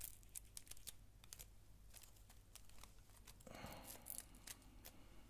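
Near silence with faint rustles and small clicks of goose biots being handled; a slightly longer soft rustle comes about three and a half seconds in.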